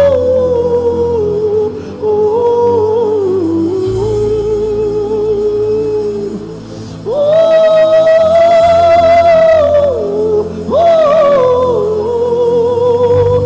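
Slow gospel worship song: a lead voice sings long held notes over a steady sustained accompaniment and bass. About halfway through it rises to a longer, higher held note.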